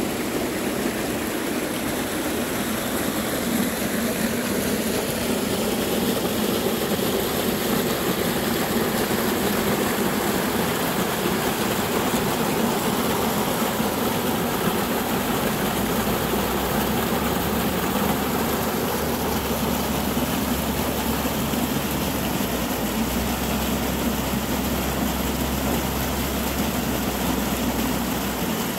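Rain-swollen, muddy creek rushing over rocks and small cascades: a steady, loud rush of water. About halfway through, a low steady rumble joins underneath.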